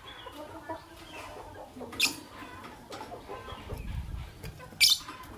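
Fischer's lovebirds chattering with soft twittering notes, broken by two sharp, shrill chirps, one about two seconds in and one near the end.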